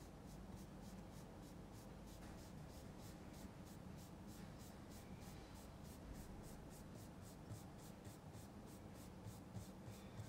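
Paintbrush scrubbing oil paint on canvas in faint, even back-and-forth strokes, about three a second.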